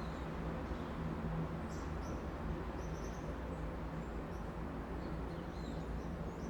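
Steady low hum of city traffic, with small birds giving short, high chirps again and again over it.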